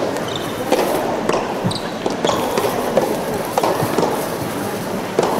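Soft tennis rally: the soft rubber ball is struck back and forth by rackets and bounces on the hard court, giving a string of sharp knocks spaced roughly half a second to a second apart, over a constant hall murmur.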